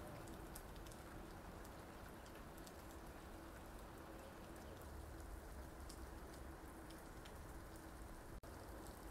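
Light rain falling on an outdoor train platform: a faint, even patter with scattered small drop ticks, over a faint steady hum.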